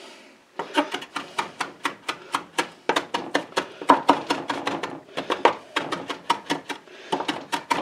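Kitchen knife finely chopping fresh cilantro on a wooden cutting board: a quick, even run of blade strokes hitting the board, about four to five a second, starting about half a second in.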